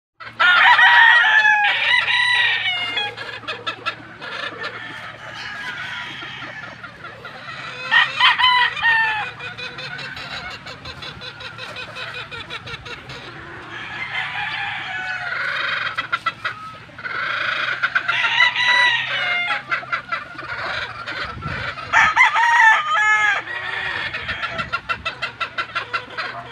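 Gamefowl roosters crowing again and again, several long loud crows, with softer clucking from hens between them.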